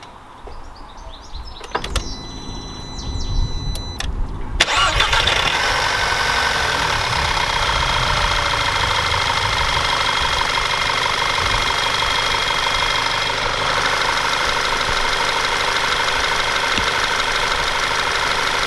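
Audi TT Mk2's 2.0 TFSI EA888 (CCZA) turbocharged four-cylinder petrol engine starting about four and a half seconds in, after a few faint high tones, then idling steadily. The idle doesn't sound too bad: no clear rattle, though the owner suspects a timing chain or tensioner problem, heard as a bike-chain rattle when he lifts off the accelerator.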